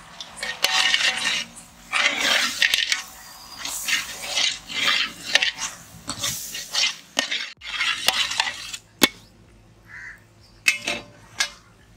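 Metal ladle stirring and scraping through thick masala gravy in a large metal cooking pot, in a run of uneven scraping strokes. A few sharp metal clinks come near the end.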